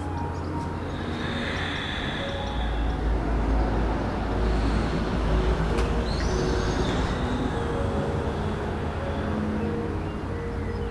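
Soft background music with held notes over a steady low rumble from outside, like distant traffic, which swells in the middle. A bird chirps briefly a couple of times.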